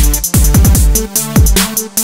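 Electronic background music with a heavy beat: deep kick drums that drop in pitch, sharp drum hits, and short synth notes.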